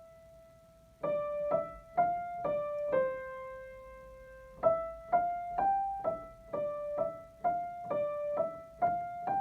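Piano playing a simple one-note-at-a-time beginner's melody in the treble. A held note fades out, the melody starts again about a second in, pauses on a long note near the middle, then goes on at about two notes a second.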